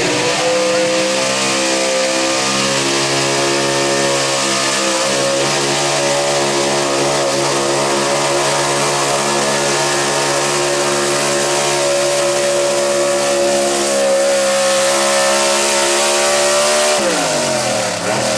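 Gas-powered stock pickup truck's engine held wide open at high, nearly steady revs while pulling the sled. About 17 seconds in, the revs fall away quickly as the throttle is let off.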